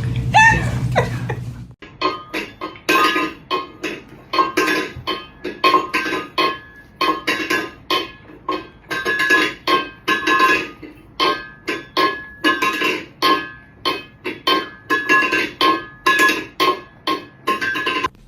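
Music of short plucked or knocked notes in a steady rhythm, about two to three notes a second, starting about two seconds in after a brief low hum.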